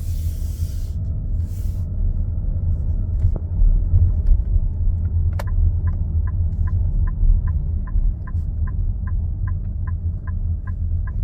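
Nissan X-Trail e-Power's petrol generator engine running with a loud, steady low rumble, which the owner considers abnormally loud. About five seconds in, a click is followed by a regular electronic ticking, about three or four ticks a second.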